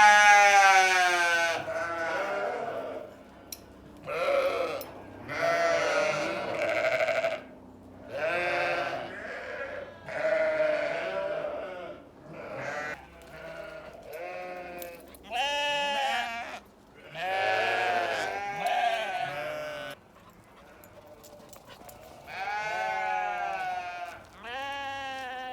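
Sheep bleating, a long series of separate calls of a second or two each, some overlapping, the loudest at the start.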